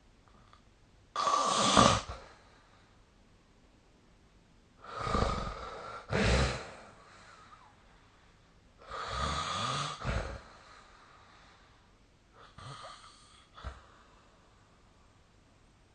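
A sleeping person snoring: four rasping snore breaths, roughly four seconds apart, the last one fainter.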